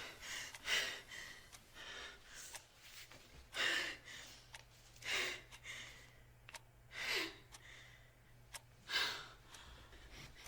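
A woman's heavy breathing: a run of loud gasping breaths, one every second and a half to two seconds, as on waking from a nightmare.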